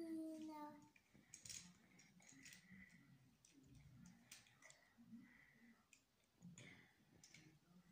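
Faint, scattered clicks of small plastic toy figures handled by a toddler, a few seconds apart in a very quiet room. A sung note trails off within the first second.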